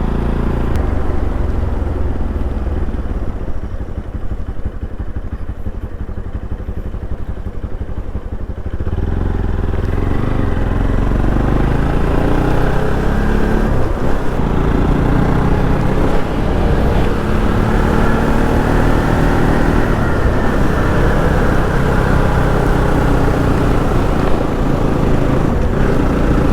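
Motorcycle engine running under way, lower at first, then louder and higher-pitched from about a third of the way through as it pulls harder.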